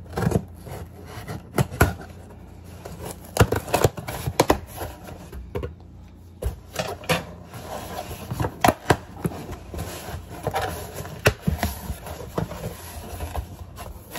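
Irregular clicks, knocks and light rustles of packaging and items being handled on a counter, with hands working at a cardboard box.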